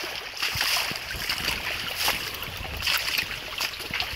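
A shallow stream running over rocks, a steady rushing hiss. Short knocks at irregular intervals that fit footsteps on the rocky path.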